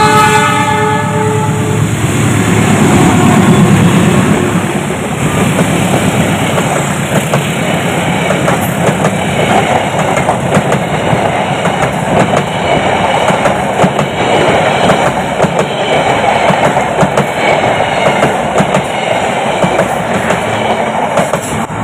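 Diesel-hauled passenger train passing close by: the locomotive's horn sounds briefly at the start, the locomotive's engine goes by loudly a few seconds in, then the coaches roll past with a steady clickety-clack of wheels over the rail joints of a newly laid turnout.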